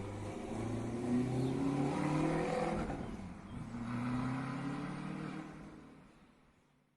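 A tuned car's engine revving up hard twice, its pitch climbing, dipping about three seconds in, then climbing again, before the sound fades out.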